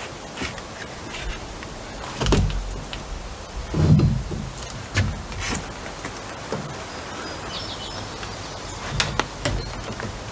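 A large old window being worked loose from its wall opening by hand: a series of knocks, bumps and creaks as the frame shifts against the framing, the loudest about four seconds in.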